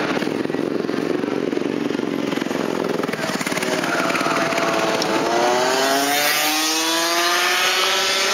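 Go-kart engines running around the circuit; from about five seconds in, one engine's pitch climbs steadily as a kart accelerates.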